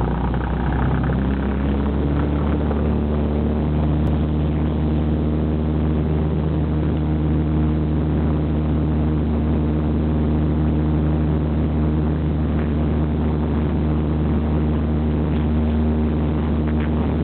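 Cessna 172's piston engine and propeller droning at high power, heard inside the cabin; the pitch rises over the first couple of seconds and then holds steady, as during takeoff and initial climb.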